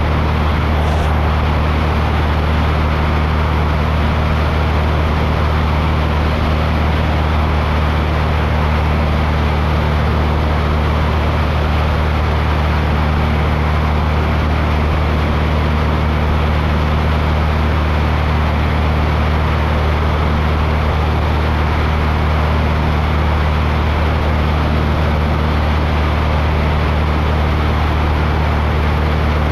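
Steady drone of a small aircraft's engine in flight: an unchanging low hum with a few steady tones under a constant rushing noise.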